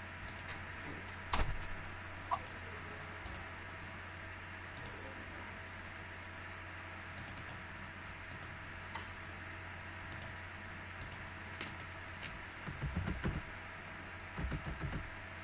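Typing on a computer keyboard: a couple of isolated clicks in the first few seconds, then two short runs of keystrokes near the end, over a steady electrical hum.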